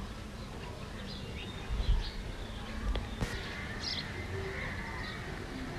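Wooden spatula stirring and mashing eggplant in a metal wok, with a few soft knocks and scrapes about two and three seconds in and one sharp click just after. Birds chirp faintly in the background.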